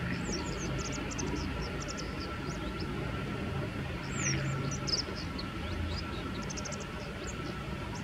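Bull-headed shrike calling: quick scattered groups of short, high squeaky notes, some sliding up or down in pitch, over a steady low rumble.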